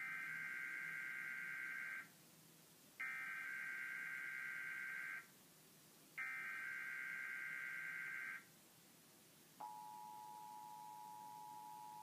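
Emergency Alert System header: three bursts of warbling data tones, each about two seconds long with a second's gap between them, then the steady two-tone EAS attention signal starts near the end. It is heard through a television's speaker and opens a test tornado warning.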